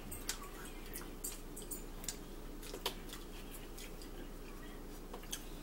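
Quiet eating at a table: scattered faint clicks and smacks of chewing and finger-licking, one a little louder about three seconds in, over a steady low hum.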